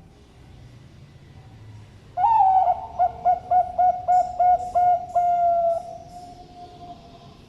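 Zebra dove (perkutut) with a thick voice cooing one full song phrase: an opening note, a quick stuttering run of about eight short coos, then a long held final coo that slowly fades.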